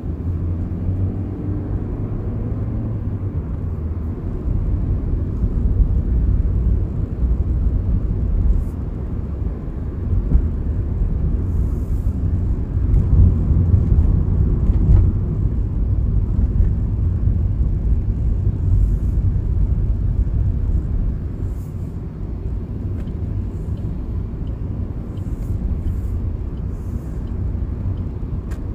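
Car driving along, heard from inside the cabin: a steady low rumble of road and engine noise, louder for a stretch in the middle.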